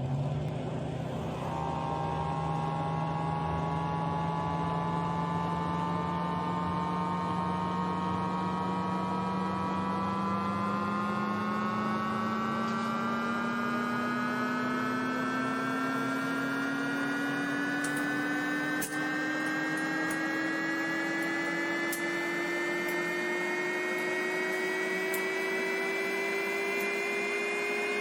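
Microwave oven running: a steady electrical hum with several tones that rise slowly and evenly in pitch, and a few faint clicks in the second half.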